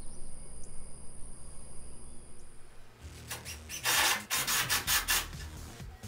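High, steady insect drone over a low rumble; then, about three seconds in, a run of loud rasping, scraping strokes on wood that fade near the end.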